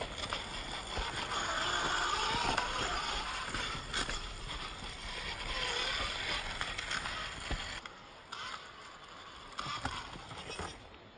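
Axial Capra 1.9 RC trail buggy crawling over rough trail ground: a steady rolling and scraping noise with scattered knocks of tyres and chassis on rocks and roots, quieter for the last few seconds.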